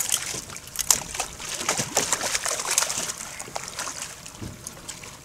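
Hooked king mackerel thrashing at the surface beside the boat, throwing a run of irregular splashes that thin out over the last couple of seconds.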